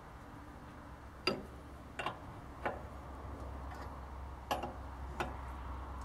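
Five sharp metallic clicks at uneven spacing as a wrench works the adjusting nuts on a band sawmill's blade guide roller, loosening the top nut and tightening the bottom one to level the roller.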